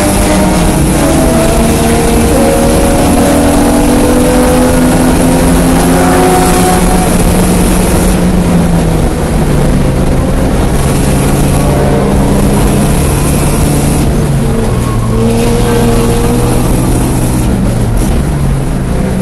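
Porsche 924S's 2.5-litre four-cylinder engine under hard acceleration at racing speed. Its pitch climbs slowly in each gear and drops sharply at upshifts about a second and about nine seconds in. It drops again about fourteen seconds in and jumps back up near the end.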